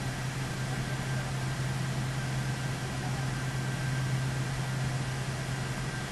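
Steady machine hum: a constant low drone under an even fan-like rushing noise that does not change.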